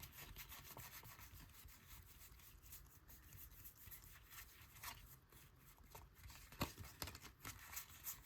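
Faint rubbing and light ticks of Topps baseball cards sliding over one another as a pack is thumbed through, card by card.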